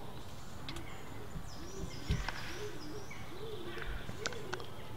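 A pigeon cooing in a low, repeated phrase, with faint small-bird chirps higher up and a couple of faint clicks.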